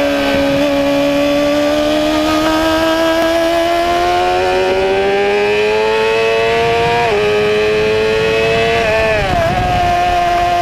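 Sport motorcycle engine heard from onboard at track speed, its pitch climbing steadily under acceleration. About seven seconds in the pitch drops suddenly at an upshift, and near the end it dips briefly and climbs back.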